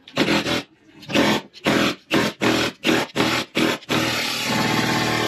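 Cordless impact wrench hammering on a seized, rusted bolt. It fires in short trigger bursts, about three a second, then runs continuously near the end.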